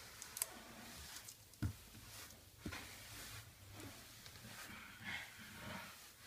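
Rubber grout float sweeping and scraping grout across glazed ceramic subway tile. Faint smearing strokes with a few light knocks of the float against the tile.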